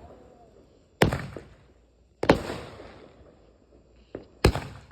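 Consumer multi-shot firework cake firing: three loud bangs roughly a second apart with a smaller pop just before the last, each dying away in a short rumbling tail.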